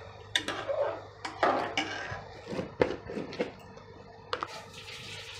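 A metal spoon stirring boiled wheat in melted jaggery syrup in an aluminium pressure cooker pot, with a run of knocks and scrapes of the spoon against the pot that eases off near the end.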